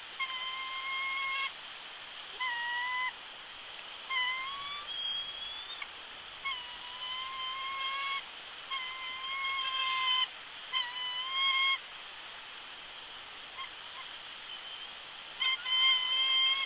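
Background music: a slow, flute-like melody of long held notes, some sliding up or down at their ends, with a pause near the middle, over a faint steady hiss.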